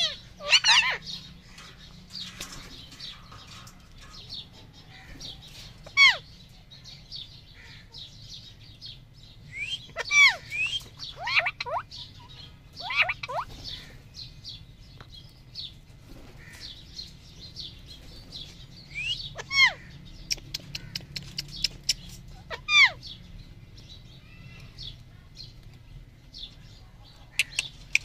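Caged parakeets giving short, sharp screeching calls, each sweeping steeply down in pitch. The calls come every few seconds, sometimes two or three close together, with softer chattering between them.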